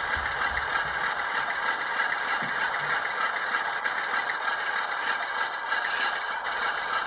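Class 47 diesel sound from a LokSound V5 decoder (Legomanbiffo sound file) in a model locomotive: the Sulzer 12LDA28 engine runs steadily at low power as the loco crawls along. It plays through the model's small on-board speaker, so it sounds thin, with little bass.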